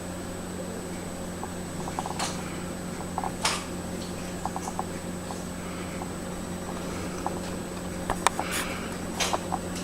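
Steady indoor hum with scattered small clicks and a few brief rustles, the sound of a camera and window blinds being handled.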